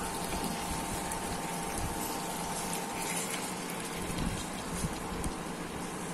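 Pointed gourd curry simmering and bubbling in a non-stick wok as a wooden spatula stirs it, with a few soft scrapes. A faint steady tone stops about halfway through.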